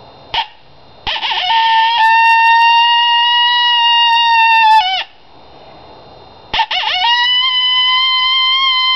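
Cow horn coyote howler call blown in two long, steady howls after a brief toot near the start. Each howl starts with a wavering, broken rise. The first is held about four seconds and ends in a quick falling break about five seconds in. The second begins about six and a half seconds in and is still held at the end.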